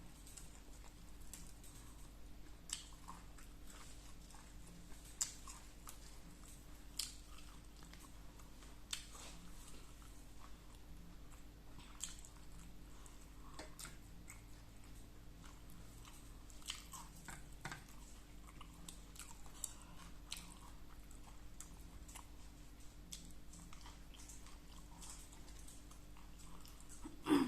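A person chewing and eating close to the microphone: quiet mouth sounds with soft clicks and smacks every second or two, and one brief louder sound right at the end.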